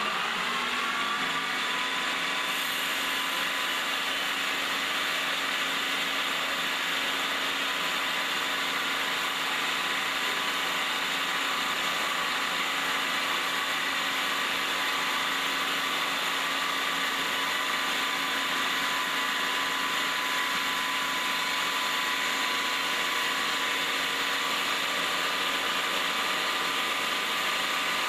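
Automatic wood-turning copy lathe running. It comes up to speed in the first half-second, then runs steadily with a whine of several tones over a rushing noise.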